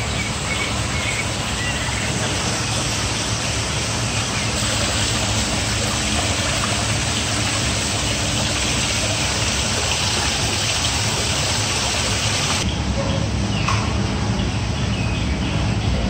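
Steady rush of a small artificial rock waterfall, with a few faint bird calls over it. About three-quarters of the way through, the higher hiss of the water falls away suddenly.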